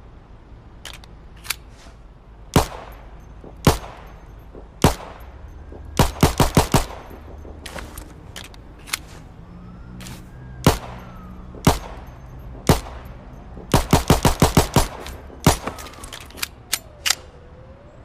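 Browning Hi-Power semi-automatic pistol firing: three single shots about a second apart, a quick string of about five, three more single shots, then a faster string of about eight and one last shot. Each shot is sharp and rings on briefly.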